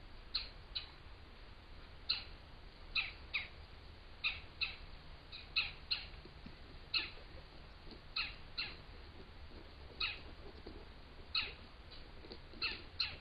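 Short, high chirping calls repeated throughout, mostly in quick pairs about a third of a second apart, with a pair every second or so, over a low steady hum.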